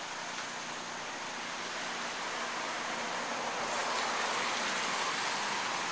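Rushing floodwater of a small creek running over its banks, fast and high after heavy rain: a steady rushing noise that grows a little louder toward the end.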